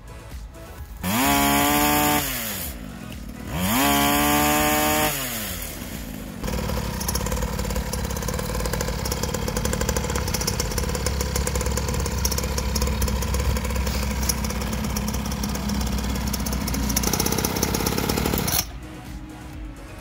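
Small single-cylinder two-stroke engine of a cheap mini dirt bike, revved twice in quick succession with the pitch rising and falling, then running steadily for about twelve seconds before cutting off abruptly near the end.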